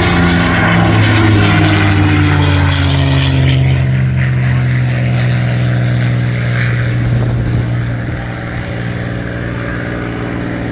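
P-51 Mustang's V-12 piston engine and propeller, loud as the aircraft passes during an airshow display. The engine pitch sinks slowly as it goes by, and the sound fades over the last few seconds.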